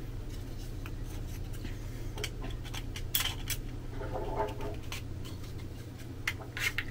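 Small 3D-printed PLA parts being fitted together and slid apart by hand to test a slide fit: scattered light plastic clicks and scrapes over a low steady hum.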